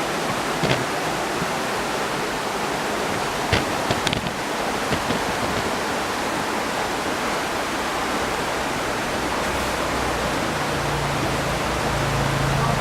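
Steady rushing of the waterfall below, heard from above. A few short clicks land about a second in and around four seconds in, and a low steady hum joins near the end.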